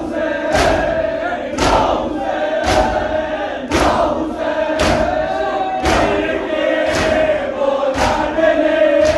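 Crowd of men chanting a mourning lament in unison while beating their chests together in matam, a heavy slap landing about once a second in time with the chant.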